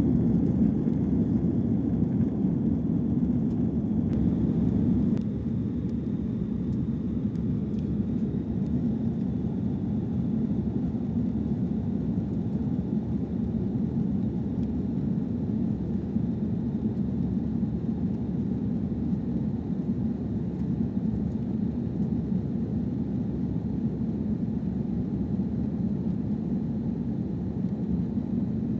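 Airbus A330-200 cabin noise in flight: a steady low rumble of the engines and rushing air, which drops a little in level about five seconds in.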